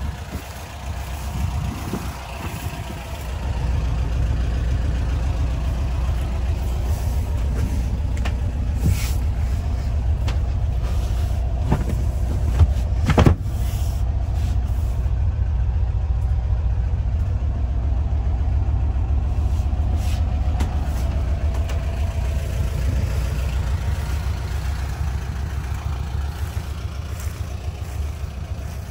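Air-cooled flat-four engine of a Volkswagen bay-window bus idling steadily, louder from about three seconds in. A few knocks and clicks sound over it, the sharpest about thirteen seconds in.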